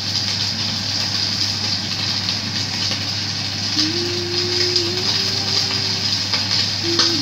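Fish frying in hot oil under a pan lid: a steady sizzle over a low steady hum. From about four seconds in, a faint held tone steps up and down in pitch.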